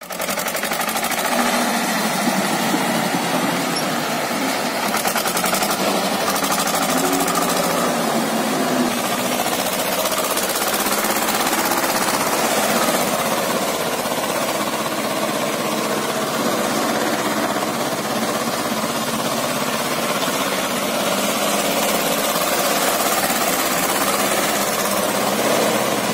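Tractor diesel engine running steadily under load with a dense, fast rattle, as the tractor drags an implement to churn wet clay in a flooded pit.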